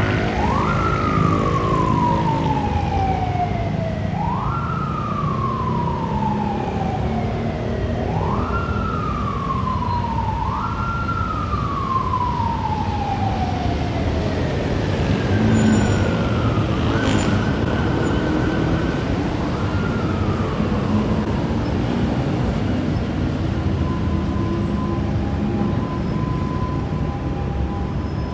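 Emergency vehicle siren wailing over steady city traffic: each cycle rises quickly in pitch and then falls slowly, repeating about every four seconds. In the second half it switches briefly to a held tone, gives one more falling sweep and fades.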